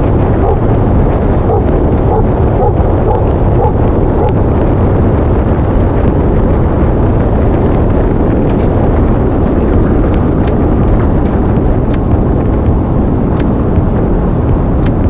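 Loud, steady rumble of a moving vehicle, with wind buffeting the microphone.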